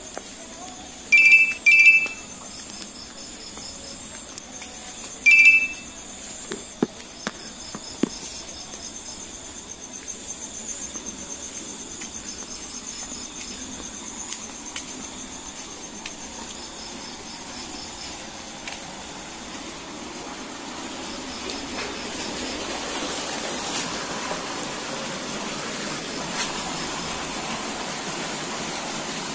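Night insects, crickets, chirping steadily in a high, fine pulsing drone. Three loud, short, high-pitched chirps stand out, two close together about a second in and one more about five seconds in. A broad hiss grows louder over the last third.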